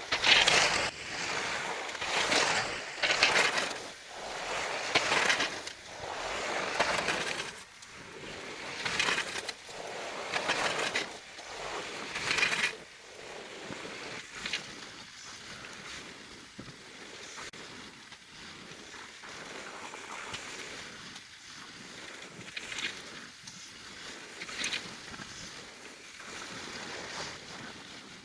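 Blizzard wind gusting with blowing snow, a rushing noise that surges every second or two, then eases to a lower, steadier rush about halfway through.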